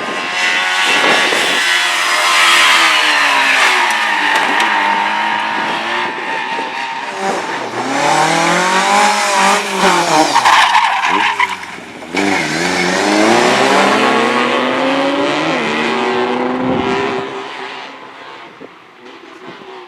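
Race car engine revving hard on a slalom course, its pitch climbing and dropping repeatedly with gear changes and lifts between turns, with tyres squealing. The sound fades away in the last few seconds.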